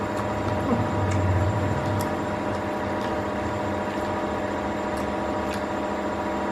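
Steady mechanical hum holding several fixed tones, with a few faint clicks.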